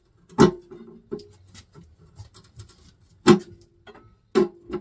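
Hand tools clanking and tapping against metal parts of a 350 Chevy small-block engine during teardown: four sharp metallic knocks with a brief ring, three of them loud, with light ticks in between.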